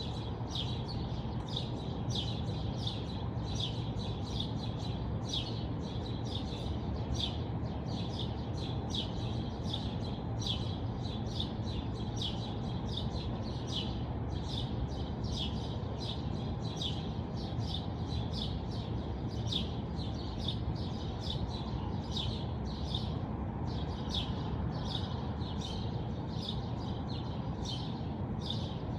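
Small birds chirping continually, many short high chirps a second, over a steady low background rumble.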